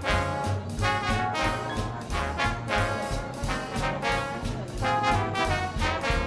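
Upbeat brass band music with a steady bouncing bass line, played as a theme park ride's queue-area background music.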